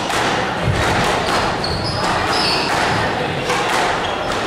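Squash rally: the ball is struck by rackets and hits the court walls in a run of sharp hits, with brief shoe squeaks on the wooden court floor.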